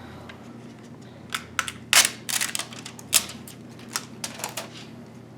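Hands handling a graphics card and the parts around it: a run of irregular small hard clicks and knocks starting about a second in, the loudest about two seconds in.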